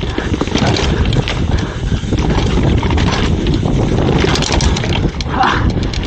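Wind buffeting the microphone of a helmet-mounted camera on a downhill mountain bike at speed, with a steady low rumble and the bike clattering and rattling as it drops down concrete steps and rolls onto the road.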